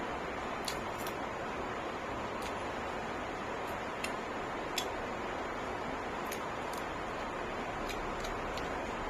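Faint, irregular small clicks and smacks of someone chewing and eating, over a steady background hiss.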